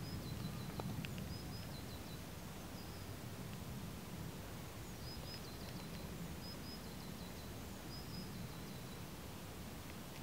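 Outdoor background: a steady low rumble with a small bird's high, thin call of two short notes stepping down in pitch, repeated every second or two.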